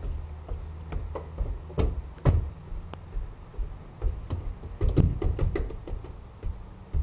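Scattered knocks and taps at uneven spacing over a low rumble, with a quick cluster of them about five seconds in.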